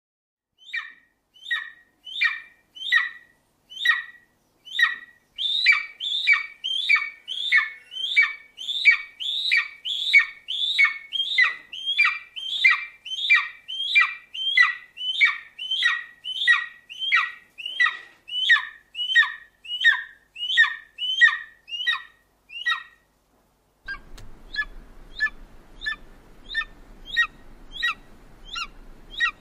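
Eagle calling in a long series of short, falling call notes, about two a second. After a brief gap near the end, a second recording cuts in: the calls go on more faintly over a low background hum.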